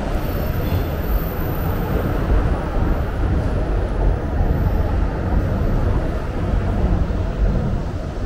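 Steady, loud low rumble of passing vehicle noise.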